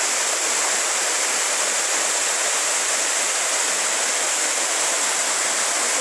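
Waterfall pouring onto rocks: a steady, unbroken rush of falling water.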